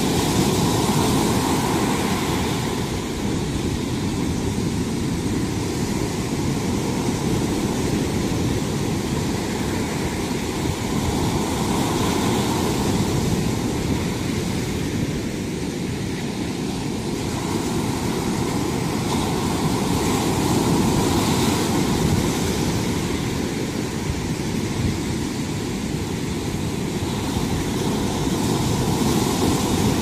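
Sea waves breaking and washing up on a sandy beach: a continuous rushing surf that swells and ebbs slowly, peaking every eight to ten seconds or so.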